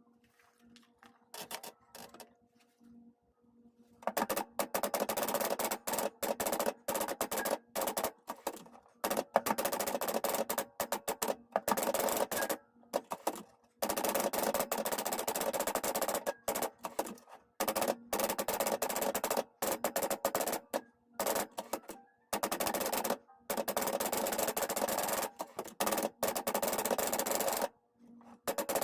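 1969 Adler J5 manual typewriter being typed on fast: a few faint, scattered clicks, then about four seconds in a dense, rapid run of key strikes broken by several short pauses.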